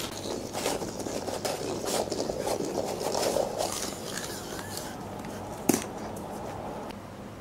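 Battery-powered wriggling cat toy, a crinkly plastic snack-bag pouch with a furry tail, rattling and crinkling on a wooden floor in rapid clicks. It goes quieter about four seconds in, and a single sharp click comes near six seconds.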